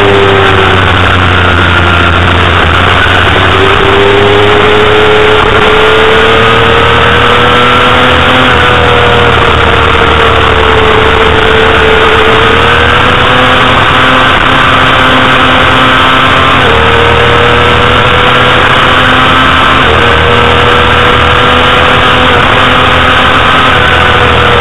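Honda CBR250RR's 250 cc inline-four engine at high revs under racing load. Its note rises and falls with the throttle and breaks off sharply several times, at gear changes. Heavy wind rush on the onboard microphone runs under it.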